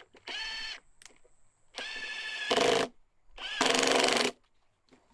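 A small electric power tool's motor run in three short bursts, each a second or less, with a steady whine; the second and third bursts are the loudest.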